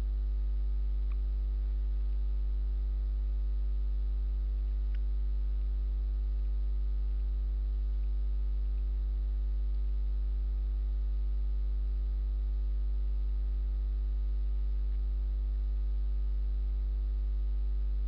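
Steady electrical mains hum, a 50 Hz tone with a stack of evenly spaced overtones, unchanging throughout, with a couple of faint ticks about a second and five seconds in.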